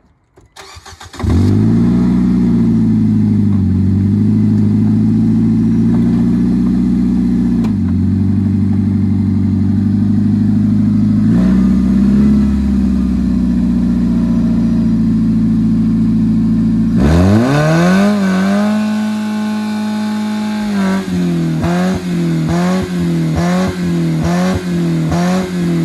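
Nissan Versa four-cylinder engine, its oil drained, started about a second in and held flat out at high revs to destroy it. The revs dip briefly every few seconds, fall and climb again near the end, then rise and fall in a quick regular rhythm with sharp ticks.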